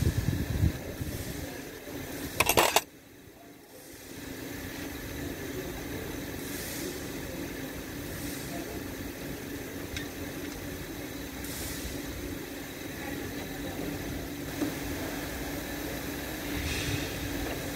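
A steady mechanical hum with one low tone running through. A brief loud clatter comes about two and a half seconds in.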